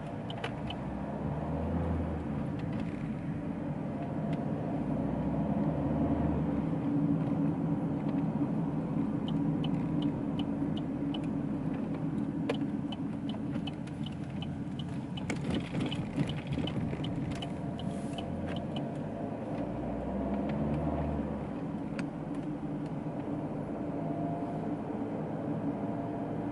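Cabin noise of a 2011 Opel Insignia with the 2.0 CDTI four-cylinder turbodiesel on the move: steady engine and road rumble. A run of even ticks sounds for a few seconds near the middle.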